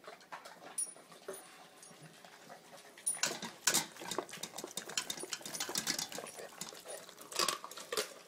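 Dogs eating raw chicken from stainless steel bowls: wet chewing and crunching with clinks against the bowl. It is sparse at first and becomes a busy run of crunches about three seconds in.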